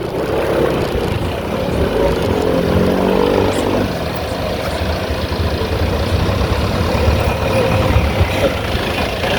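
Motorcycle ride: a running engine with steady road and wind noise, and an engine note that falls in pitch about two to four seconds in.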